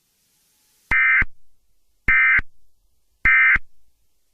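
Emergency Alert System end-of-message signal: three short bursts of SAME digital data tones about a second apart, marking the end of the alert.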